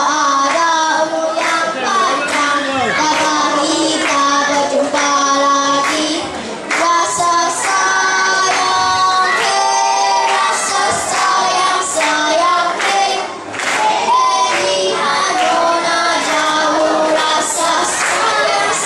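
Four children singing a song together into microphones, their voices holding pitched notes line after line.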